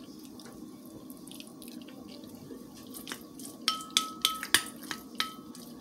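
Plastic spoon scraping and clinking against a ceramic bowl of rice, a quick run of sharp clinks with a brief ring from about three and a half seconds in, alongside wet chewing sounds. A steady low hum runs underneath.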